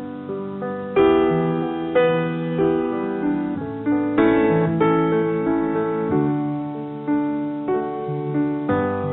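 Slow solo piano music: chords struck about once a second, each ringing and fading, as the instrumental introduction to a song.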